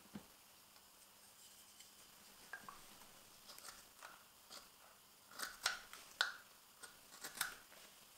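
Straight carving knife, a Morakniv 106, slicing shavings from a fresh, dense maple spoon: a string of short, crisp cuts, irregularly spaced, growing more frequent and louder from about halfway through.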